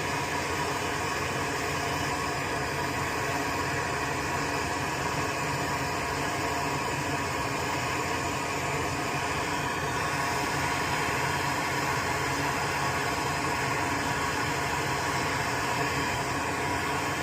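Small electric fan running steadily: an even whir with a faint steady hum.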